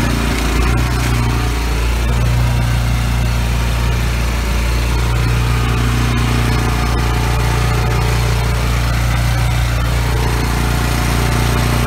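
Small engine running steadily, the drive of an engine-driven hot-water thawing unit at work thawing a frozen catch basin.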